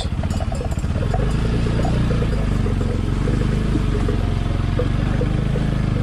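Motorcycle engine running steadily at low speed, with the bells hung on passing cows and goats clattering.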